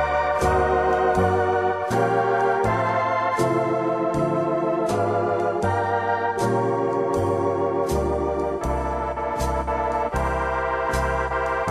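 Background instrumental music: held organ chords over a bass line that steps to a new note about every second.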